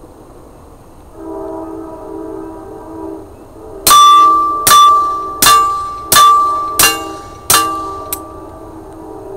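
Six shots from a Walther P22 .22 LR pistol fitted with a Gemtech Outback II suppressor, fired a little under a second apart, with a small click just after the last. A steady, pitched drone sounds in the background.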